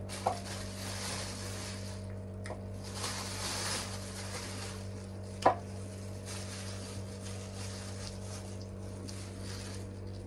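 Plastic bag crinkling and rustling as raw chicken pieces are pulled out and dropped into a bowl, over a steady electrical hum. There is one sharp knock about five and a half seconds in.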